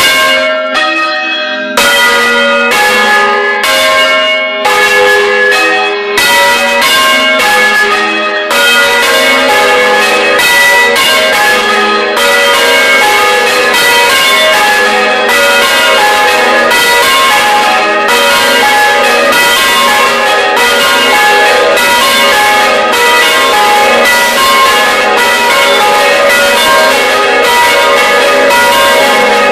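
Several bronze church bells swung by hand on ropes, heard close up inside the belfry, their clappers striking one after another in an overlapping peal. The strikes are spaced apart at first, then from about eight seconds in crowd together into a dense, continuous clangour.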